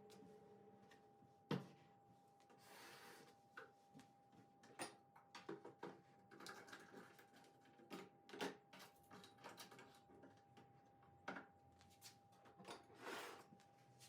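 Quiet household handling sounds: a series of light knocks and clicks, with a sharper knock about a second and a half in and two brief rustling swells, over a faint steady hum.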